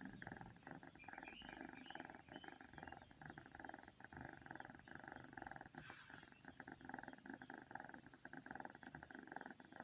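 A cat purring: a soft, continuous rapid rattle that swells and eases in waves of about a second with each breath in and out.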